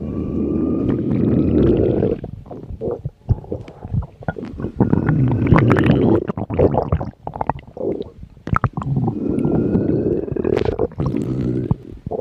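Hungry stomach growling: long low rumbles broken by short bubbly gurgles and squelches, with a few faint rising squeaky tones.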